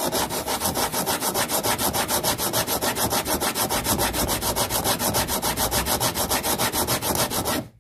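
Two-way file rubbed rapidly back and forth along the ends of extra-hard Gold EVO fret wire, flush-filing the fret ends level with the fretboard edge. Even rasping strokes, several a second, that stop just before the end.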